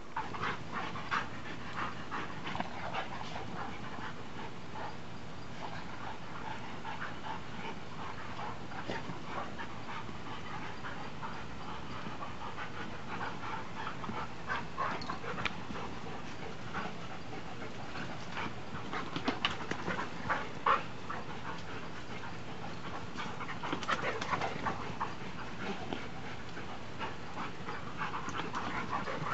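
Dogs panting, with scattered short scuffling sounds as they play.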